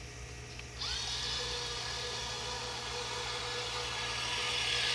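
Small electric motor of a radio-controlled amphibious toy truck whining steadily as it drives in the water, starting about a second in with a brief rise in pitch.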